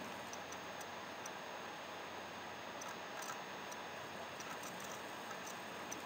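Quiet room tone: a steady low hiss with a few faint ticks or clicks scattered through it.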